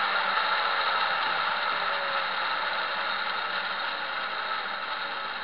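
Homemade bandsaw mill's motor, wheels and blade whirring steadily, the sound fading gradually and its pitch sinking slightly as the machine winds down.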